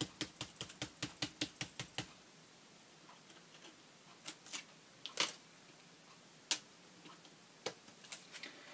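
A paintbrush dabbing paint through stencils held on a board journal page: a fast run of dry taps, about six a second, that stops about two seconds in. After that come a few scattered clicks and taps as the stencils are handled.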